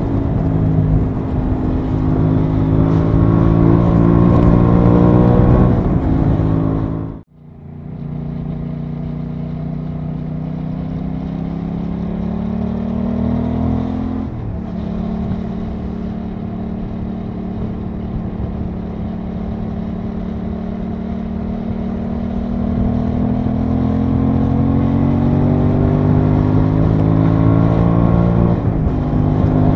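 Aprilia Tuono 660's parallel-twin engine running on the road, its pitch climbing as the bike accelerates and dropping suddenly at gear changes about fourteen seconds in and again near the end. The sound cuts out briefly about seven seconds in.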